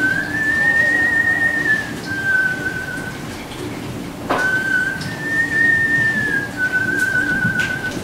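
A man whistling slow, pure-toned phrases: a note that rises slightly and holds, then drops to a lower, wavering note, the phrase heard twice. There is a sharp click about four seconds in.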